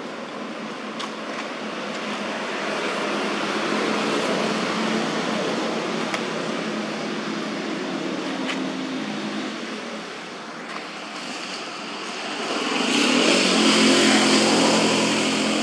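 A passing motor vehicle: a rushing engine and tyre noise that swells a few seconds in, eases, then swells louder near the end with a low hum under it.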